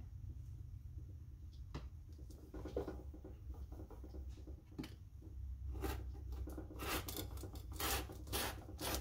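Rotary cutter blade rolling along a ruler's edge and slicing through copy paper, in a run of short rasping strokes that come thick and fast over the last few seconds, after a single click about two seconds in.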